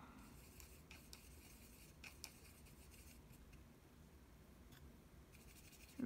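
Faint scratching and a few light ticks of a small watercolor brush swirling paint in the well of a plastic palette tray.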